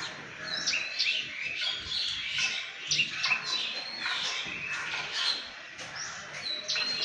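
Several small birds twittering, a dense run of short, high chirps that overlap one another, with a few brief whistled notes among them.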